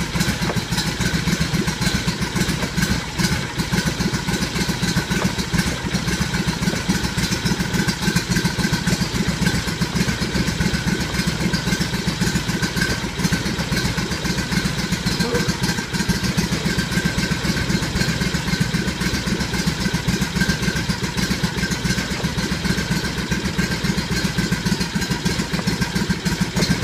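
Riding lawnmower's small gasoline engine running steadily on full choke during a cold start in freezing weather, deliberately run rich to keep it going.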